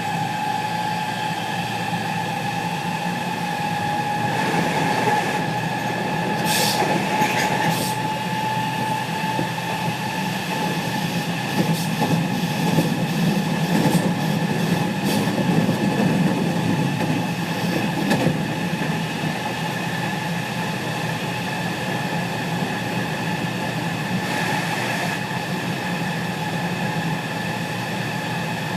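Interior running noise of a JR West 207 series 1000 subseries motor car with a Toshiba GTO VVVF inverter. Several steady inverter tones sound together, the lowest edging slightly upward, over motor and wheel hum. One of the car's two inverters has its modulation sound out of step, so it harmonizes with the normal one. Bursts of rail-joint and wheel clicks come twice, a few seconds in and around the middle.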